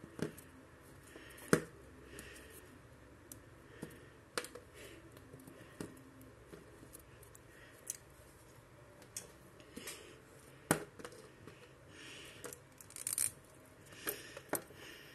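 Plastic Teenage Mutant Ninja Turtles action figure being handled on a desk: a dozen or so sharp plastic clicks and knocks at irregular intervals as its jointed parts are moved and it is set down, with soft rustling of hands in between.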